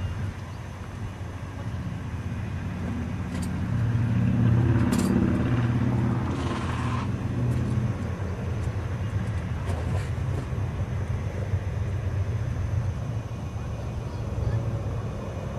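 GE Dash 8-40CW diesel locomotive running as it approaches at the head of a train, a steady low rumble that grows louder about four seconds in.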